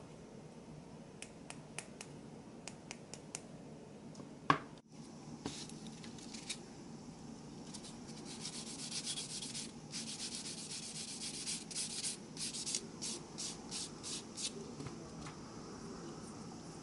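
Sanding stick rubbed in short, quick strokes over a small plastic model part, a dry scratching about three strokes a second through the second half. Before it come light clicks from handling the part and one sharp click about four seconds in.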